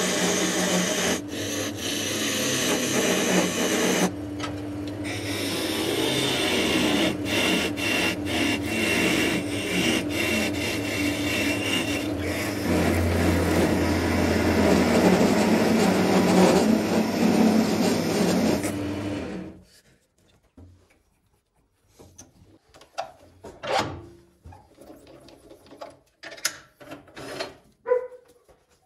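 Wood lathe turning a wooden blank while a hand-held turning tool cuts it: a steady, noisy scraping cut over the lathe motor's low hum. The sound stops abruptly about two-thirds of the way through, leaving a few light knocks and clicks.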